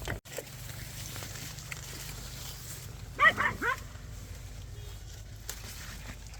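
A dog giving a short run of three or four quick, high yelping barks just past the middle, over a steady low background rumble.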